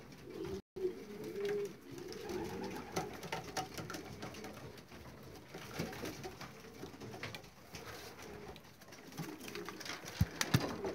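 Young racing pigeons cooing together in the loft, a continuous low murmur from many birds. A couple of sharp knocks come near the end.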